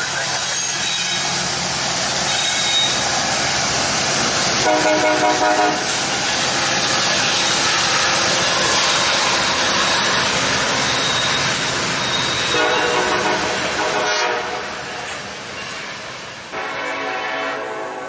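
Diesel freight train passing close by, with the steady rumble and clatter of hopper cars rolling over the rails. A Nathan K5LLA five-chime locomotive air horn sounds three times: about five seconds in, again about eight seconds later, and once more near the end.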